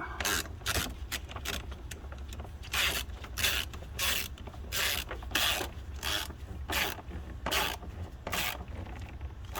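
Ratchet wrench being worked back and forth to tighten a hose clamp, its pawl clicking in short strokes about twice a second.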